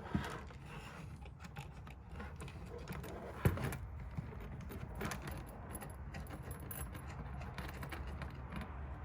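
Light metallic clinking and tapping of small metal parts and hand tools being handled, with one sharper click about three and a half seconds in.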